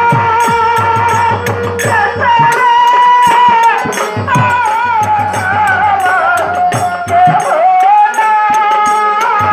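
A woman singing a Bengali Baul devotional folk song into a microphone, holding long notes that slide and bend, over a steady beat of barrel drum (dhol) and sharp, regular percussion strokes, with harmonium accompaniment.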